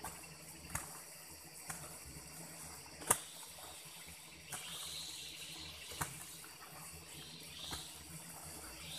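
A hand hoe chopping into packed soil: about seven sharp strikes, one every second or so, the loudest about three seconds in. A steady high hiss runs underneath.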